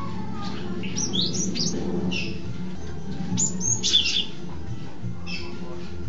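Cinereous tit (gelatik batu) singing: sharp, quick chirps and fast sweeping notes in two spells, about a second in and again around three to four seconds in, over a steady low hum.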